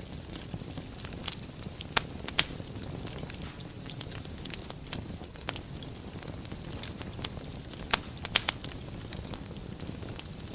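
Wood fire burning in a fireplace: a steady low rumble of flames with irregular soft crackles and a few sharper pops, the loudest about two seconds in and a cluster around eight seconds in.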